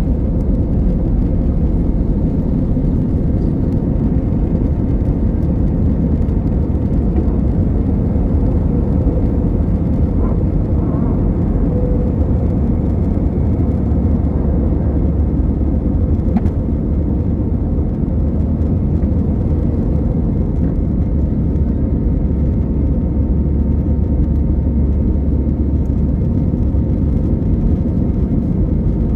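Steady engine and air rumble heard inside the cabin of an Airbus A320 jet airliner, with a faint steady hum over it.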